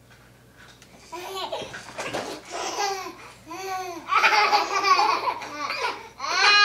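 Baby laughing in a run of short, high-pitched giggles, starting about a second in and getting louder toward the end.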